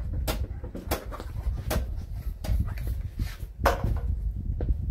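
Scattered short rustles and taps from handling a fabric bug screen hung across a van's rear doorway, the loudest about three-quarters of the way through, over a steady low rumble.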